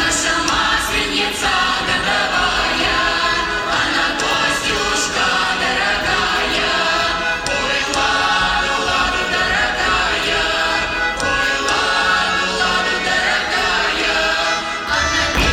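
Music with a choir singing, played as accompaniment for a stage dance.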